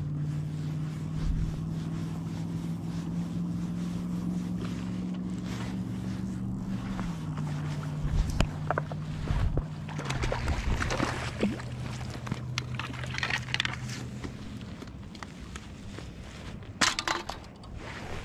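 A boat motor drones steadily on the lake, its pitch dropping twice before it fades. From about eight seconds in, a hooked trout splashes at the water's edge, with knocks and scrapes on the rocky shore, and one sharp clatter near the end.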